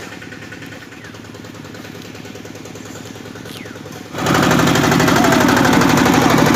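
Two-wheel power tiller's single-cylinder diesel engine running with a fast, even chugging. It is quieter at first and becomes much louder about four seconds in.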